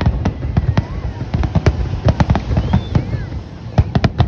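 Aerial fireworks shells bursting in a rapid, irregular string of bangs and crackles, several a second, with deep booms under them. A brief lull comes about three seconds in before the bursts pick up again.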